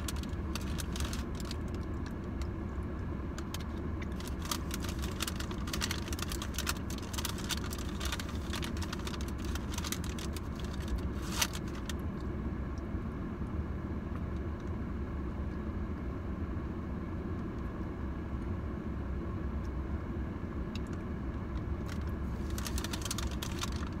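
Paper pastry bag crinkling and rustling in bursts as pieces of a dessert bar are picked out of it, over a steady low hum of the car idling.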